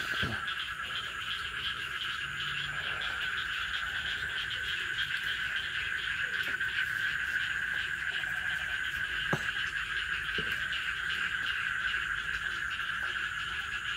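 Dense, steady chorus of frogs calling, a continuous pulsing trill in two pitch bands, with a couple of faint knocks about nine and ten seconds in.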